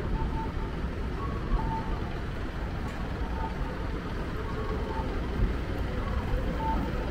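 Steady rumble of city street traffic, with short electronic beeps repeating about once a second over it.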